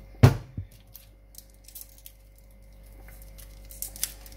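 A wooden spoon knocks against a metal cooking pot: one loud knock, a smaller one just after, and a few light clicks near the end.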